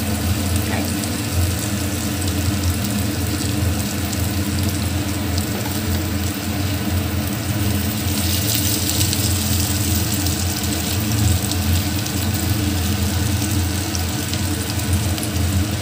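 Hot oil sizzling steadily around breadcrumb-coated vegan 'fish' patties shallow-frying in a pan, briefly a little louder about eight seconds in as they are moved with a wooden spatula, over a steady low hum.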